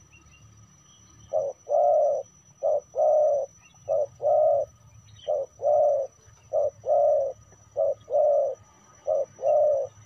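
Spotted dove cooing: seven two-part coos, each a short note followed by a longer one, repeating about every second and a quarter from about a second in.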